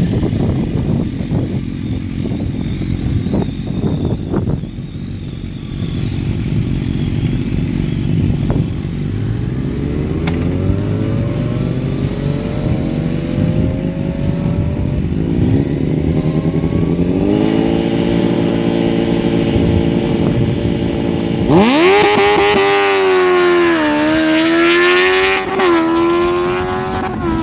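Sport bike engine running and revving, its pitch creeping up, then the motorcycle pulls away hard about three quarters of the way in with a steep climb in engine pitch that falls back twice and climbs again as it shifts up.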